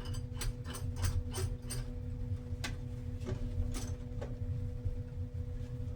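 Door-closer arm hardware being worked by hand: a run of sharp metallic clicks, quick at first and sparser later, over a steady low hum.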